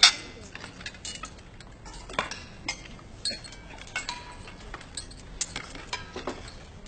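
Cutlery and dishes clinking: irregular sharp clinks of utensils against plates, the loudest right at the start.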